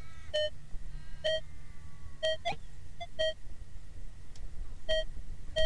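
Metal detector giving its target tone as an 1888 English penny is waved over the coil: about six short, identical mid-pitched beeps roughly a second apart, with a longer pause after the fourth. The tone is relayed through a Garrett Z-Link wireless receiver.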